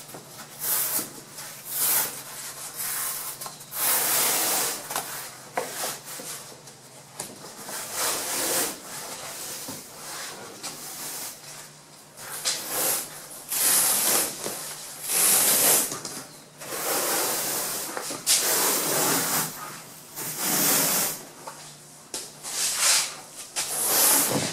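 Old foam-backed headliner fabric being peeled and torn off a squarebody Chevy Suburban's fiberboard headliner board, the dried foam crumbling away. It comes as uneven rasping rips and scrapes, one every second or two.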